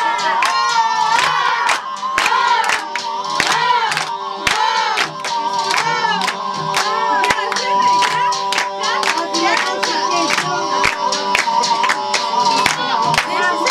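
Roman dance music (Roman havası) with a steady drum beat under held tones and a melody that glides up and down.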